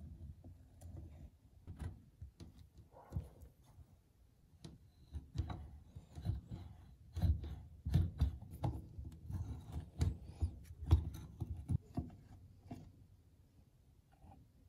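Wrench and hands working the nut and washer off the grinding-wheel arbor of a 1940s Bridge Tool Company hand grinder: a run of close clicks, taps and scrapes of metal parts, thickest in the middle and thinning out near the end.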